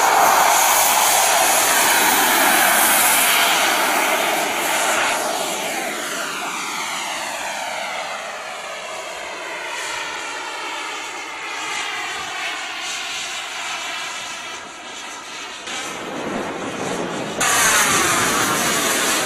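Twin model turbine jet engines of a radio-controlled F-14 Tomcat running loud in flight, then fading as the jet passes and moves away, with a sweeping, phasing whoosh. Near the end the sound jumps suddenly back to loud, close turbine noise.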